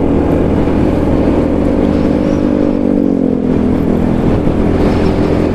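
Motorcycle engine running on the road over a steady low rumble. Its pitch falls gently between about two and three and a half seconds in.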